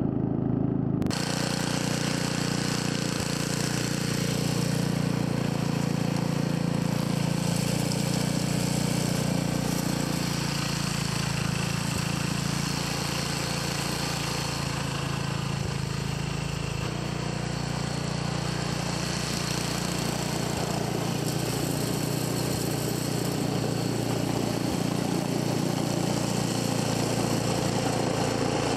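Snowblower's small gasoline engine running steadily at working speed while it throws deep snow. The sound changes abruptly about a second in, then runs on evenly.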